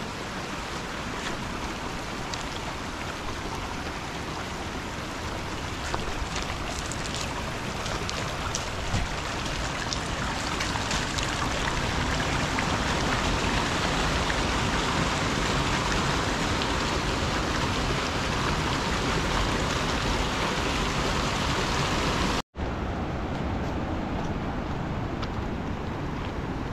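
A steady rushing noise, growing louder in the middle, with a few light clicks of footsteps on stones. It drops out for an instant near the end.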